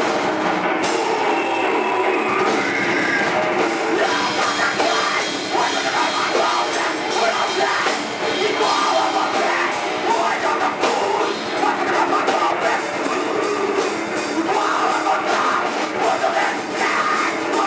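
Grindcore band playing live at full volume: distorted electric guitar and fast drum kit with a vocalist shouting into a microphone, the sound continuous and dense throughout.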